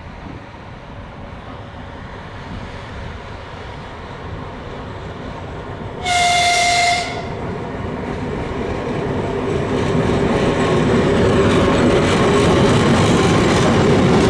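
A 2TE116 twin-section diesel locomotive running light without a train approaches, its diesel engines and wheels growing louder. About six seconds in it gives one high horn blast lasting about a second. The engines and wheel noise swell loudest near the end as it comes alongside.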